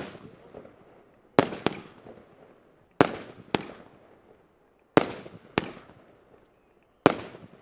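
A consumer fireworks battery firing aerial shots one after another, about every two seconds. Each shot is a sharp bang followed a fraction of a second later by a second, lighter bang as the shell bursts, with a fading echo after each.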